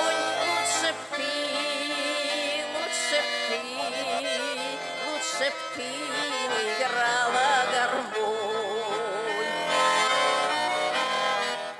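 Instrumental Russian folk music led by an accordion, its melody wavering with vibrato and marked by a few short sharp accents.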